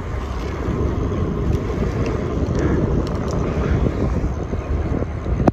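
Wind buffeting the camera microphone and bicycle tyres rolling on asphalt while riding at a steady pace, a continuous rough rumble.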